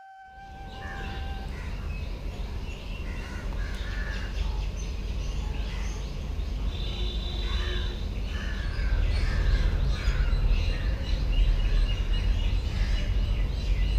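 Outdoor ambience of many birds calling and chirping, crows cawing among them, over a steady low rumble that grows louder after about nine seconds. A held flute note fades out in the first second and a half.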